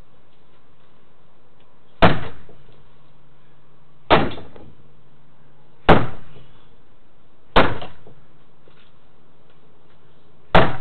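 Five heavy bangs, one every two seconds or so with a longer gap before the last, each hitting hard and ringing out briefly.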